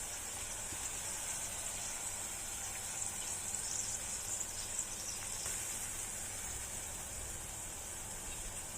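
Tofu frying in hot oil in a pan: a steady sizzle with a few faint pops.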